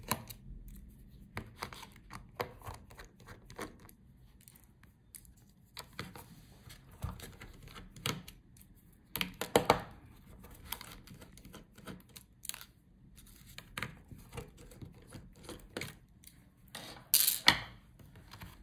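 Small screwdriver clicking and scraping on the screws of a Lenovo ThinkPad E14 Gen 2's display hinges as they are backed out, with the metal hinges clinking as they are lifted free. Scattered ticks throughout, with louder knocks about halfway through and near the end.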